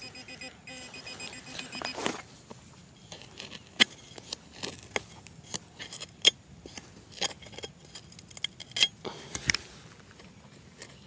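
A handheld metal-detecting pinpointer sounds a rapid pulsing tone for about the first two seconds as it alerts on a target in the hole. Then a serrated digging trowel cuts and scrapes through soil and roots in a string of sharp clicks and scrapes.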